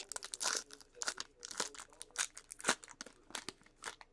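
Trading cards and their pack wrapper being handled: a quick, irregular run of short rustles, flicks and crinkles.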